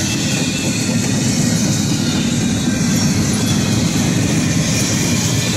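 Empty freight cars of a Norfolk Southern train rolling steadily past, their wheels rumbling on the rails with a high hiss above.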